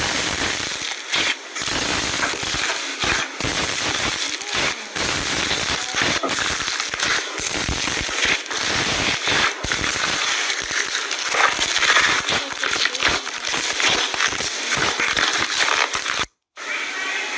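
Hands pressing and squeezing crunchy slime packed with hard black pieces, giving a dense, continuous crackling and crunching. The sound cuts out briefly near the end.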